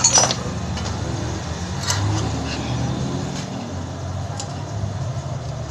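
A knock as a small kids' bike is set down, then a few light metallic clicks from hands working at its rear wheel, over a steady low hum.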